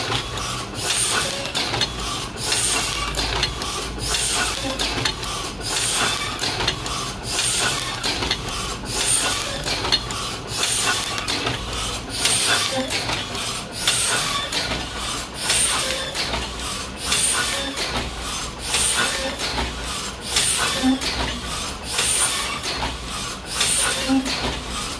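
1972 Heidelberg windmill platen press running, hot foil stamping sheets of card. It makes a rhythmic mechanical clatter of gripper arms, feeder and platen, with clacks and hissing puffs repeating in a steady cycle a little under every two seconds over a low hum.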